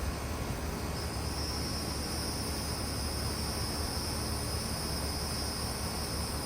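Carrier Comfort 25HCE4 two-ton heat pump outdoor unit running steadily in cool mode: the Copeland scroll compressor hums low under the rushing air of the condenser fan. A steady high-pitched whine joins about a second in.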